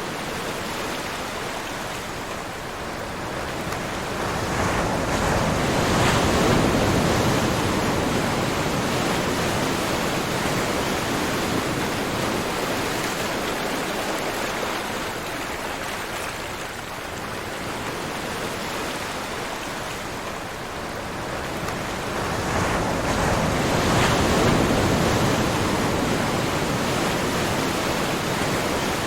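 Ocean surf: a steady wash of waves, swelling louder as a wave breaks about six seconds in and again near the end.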